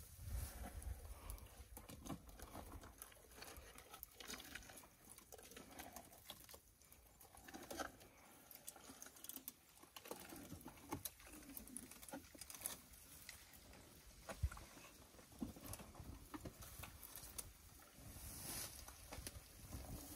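African elephants feeding at close range: quiet rustling and crackling of dry grass and leafy branches being pulled up and chewed, with scattered small snaps.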